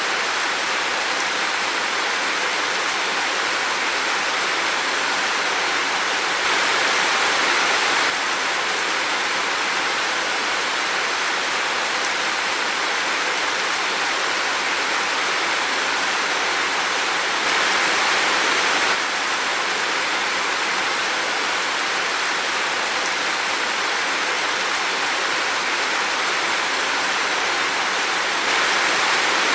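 Heavy rain pouring steadily, swelling briefly louder three times, about every eleven seconds.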